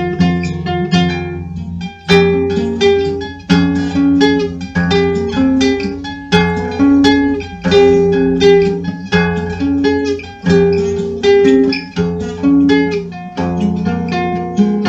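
Instrumental dark folk music: a guitar-like plucked string instrument picking rapid repeating phrases over a steady low drone.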